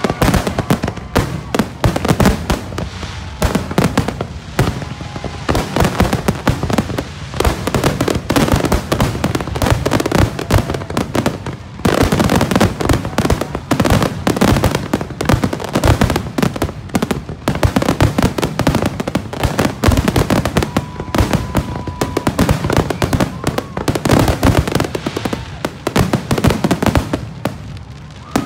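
Aerial fireworks shells bursting in a rapid, continuous barrage of booms and crackles. The barrage stops shortly before the end.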